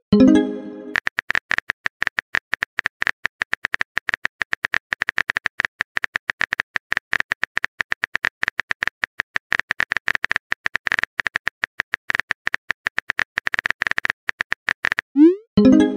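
Phone keyboard typing clicks, rapid and irregular, as a long text message is typed out. At the start and again near the end, a message-sent sound: a quick upward swoop followed by a short tone.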